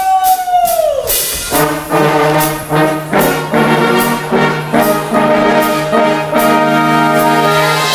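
Backing music for a rap comes in about a second and a half in: short repeated brass stabs over a steady low note.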